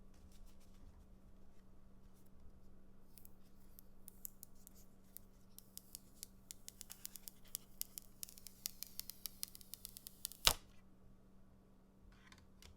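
Hands working a phone accessory against a smartphone: a run of small plastic clicks that comes faster and faster, ending in one sharp loud click about ten seconds in.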